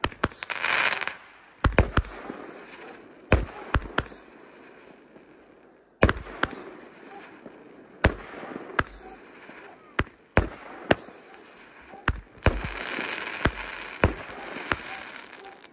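Fireworks going off, shot after shot: a string of sharp bangs a second or two apart, some in quick pairs, over a steady hiss.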